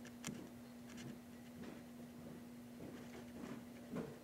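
Faint scratching and light clicks of a small tool worked against the side of a plastic model freight car, scraping at old lettering that won't come off, over a steady low hum.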